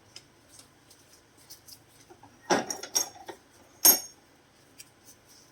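Light scattered clicks of hard objects being handled on a workbench, then about halfway through a few sharp knocks close together, the last the loudest, like a plastic part or tool being knocked and set down.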